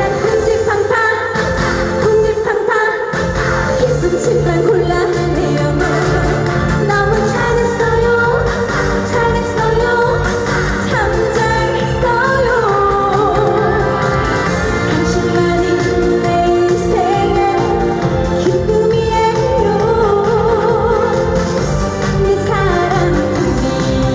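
A woman singing a Korean pop song live over loud amplified backing music with a steady beat.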